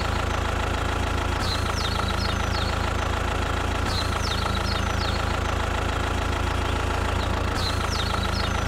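A steady engine idling sound: an even low rumble with a constant hum above it. Short high chirps come in small groups every couple of seconds over it.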